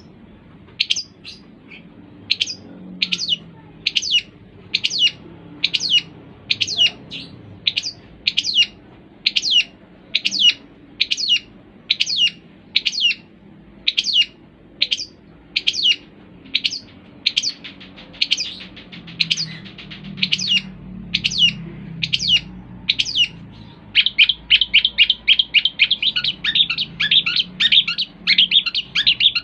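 Long-tailed shrike (cendet) calling: a long series of sharp, evenly spaced high notes, about one and a half a second, that breaks into a fast chattering run of notes near the end.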